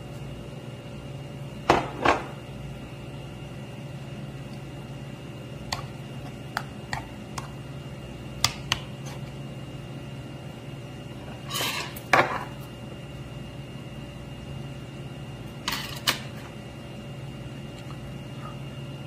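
A metal spoon and a stainless steel rice bowl knocking and clinking against a heavy black soup pot as rice is tipped in and stirred through the soup: scattered sharp knocks, often in pairs, a few seconds apart. A steady hum runs underneath.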